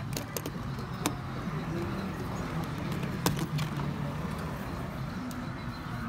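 A few sharp clicks as a thumb works the TSA combination lock on a Rimowa suitcase, the loudest about three seconds in, over a steady low background hum.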